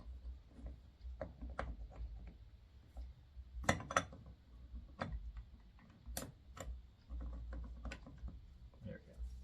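Metal clutch plates and small parts clicking and clinking as they are handled and set down, a string of sharp taps with the loudest ones around four and six seconds in.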